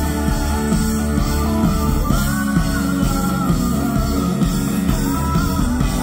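Live rock band playing through a stage PA: a singer's voice over electric guitar and drums. A long held high note comes in about two seconds in and returns briefly near the end.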